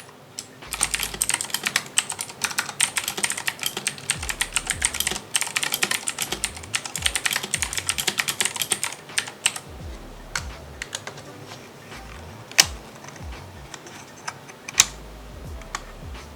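Typing on a Gigaware K28 mechanical keyboard: a fast, dense run of key clicks for about eight seconds, then slower scattered keystrokes, two of them sharply louder.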